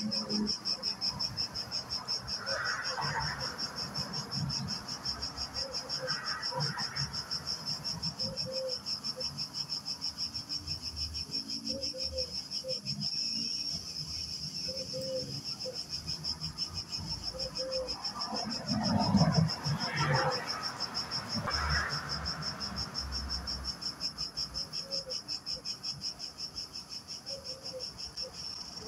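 Insects chirring in a steady, fast-pulsing high-pitched drone, with a brief louder noise about two-thirds of the way through.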